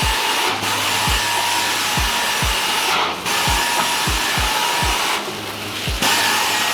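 Background music with a deep, steady kick-drum beat over a loud, steady hiss of suction from a carpet-cleaning extraction wand. The hiss breaks off briefly several times.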